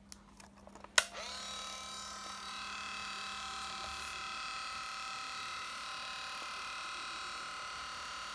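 Olympus Trip 505 compact film camera: the back door snaps shut with a sharp click about a second in. Then the camera's film-winding motor starts and runs with a steady, high-pitched whir, automatically winding on the freshly loaded film.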